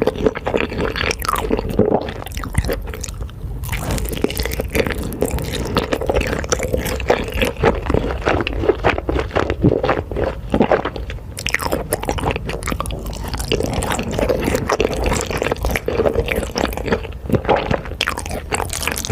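Close-miked eating of Korean food: wet, squishy chewing with crunching bites and smacking, in a dense irregular stream of small clicks.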